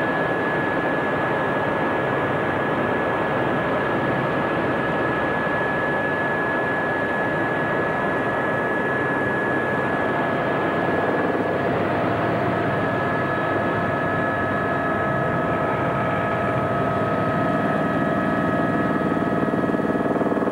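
Aérospatiale AS350B Squirrel helicopter in flight, heard from inside the cabin: a constant loud rush with steady high whines; one whine fades and a lower one takes over about halfway through.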